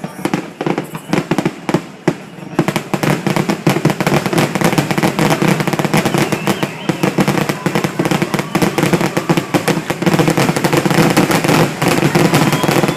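Fireworks going off in a rapid, dense crackle of bangs that grows thicker and louder about two and a half seconds in.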